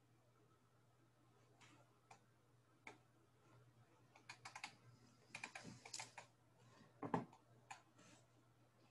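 Faint, irregular tapping and clicking of computer keys, sparse at first and coming in quick clusters from about four seconds in.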